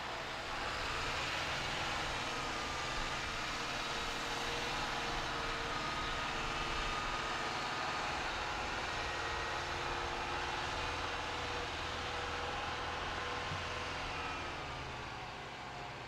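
Mercedes-Benz Unimog U 5023's four-cylinder turbo-diesel engine pulling under load up a steep slope, a steady drone with a faint whine that drifts slowly in pitch. It fades over the last couple of seconds as the truck moves away toward the crest.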